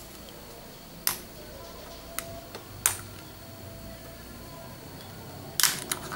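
Sharp plastic clicks and snaps as the bottom cover over the charging-port board of a disassembled Oppo A1K phone is pried loose: single clicks about one, two and three seconds in, then a quick cluster of clicks near the end.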